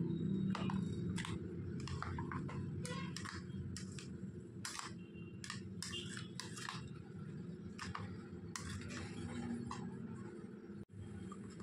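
A metal spoon stirs yogurt and chopped vegetables in a ceramic bowl, with irregular clinks and taps as the spoon hits the bowl, over a steady low hum.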